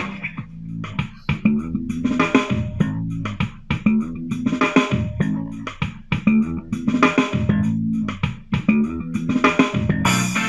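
Music with bass guitar, guitar and drums playing from an AWEI Y371 Bluetooth speaker, recorded through an external microphone with no processing.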